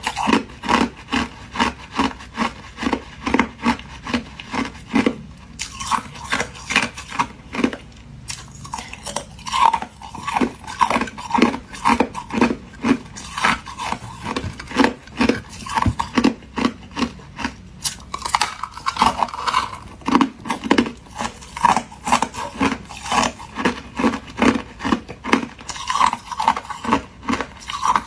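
Close-up crunching of thin clear ice being bitten and chewed. It is a steady run of sharp crunches, about two to three a second, with a short lull around eight seconds in.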